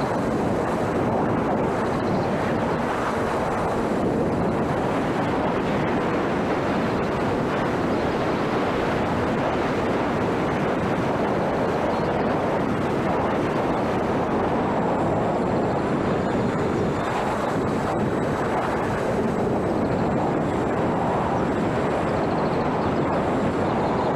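Steady, dense rushing of wind on the microphone, with no breaks or sudden sounds.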